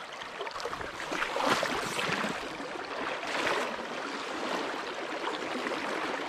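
Shallow river water rushing and splashing, with louder splashy surges about one and a half and three and a half seconds in.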